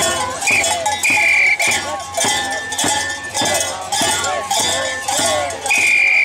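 Andean street-carnival dance music: a steady percussive beat with shrill, held whistle-like notes repeating every second or two, and wavering voices over it.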